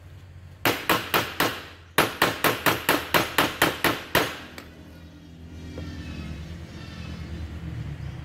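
Hammer striking a special tool to knock loose the very tight nut of the radiator fan clutch on a Toyota Vigo: four sharp blows, a short pause, then about nine more in a quick run that stop a little past halfway.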